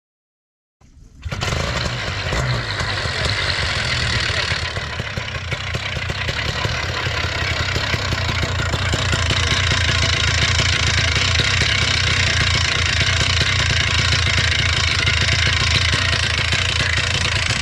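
Polini Thor paramotor's single-cylinder two-stroke engine running steadily at low throttle. It comes in abruptly about a second in and holds a fairly even note, a little louder in the second half.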